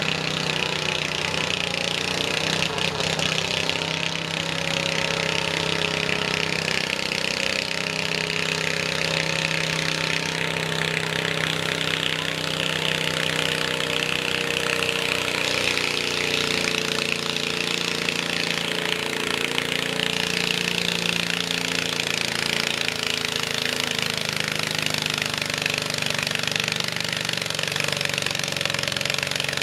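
Yellow Cub Cadet garden tractor's engine running steadily under heavy load as it drags a weight-transfer sled down the track in a stock-class garden tractor pull.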